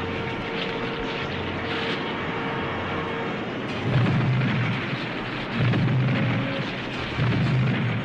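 Cartoon earthquake sound effect: a continuous rumbling of ground cracking apart, with three heavier surges about four, five and a half and seven seconds in. Background music runs faintly underneath.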